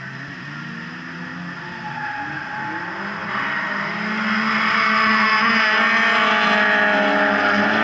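Drift cars sliding through a corner in a group: engines revving with the pitch rising and falling, and tyres squealing. The sound grows louder from about three seconds in as the cars come closer.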